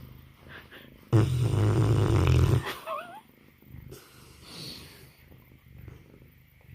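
A sleeping mastiff snoring: quiet breaths, then one loud rattling snore about a second in that lasts about a second and a half. A short wavering whistle follows, then soft breathing.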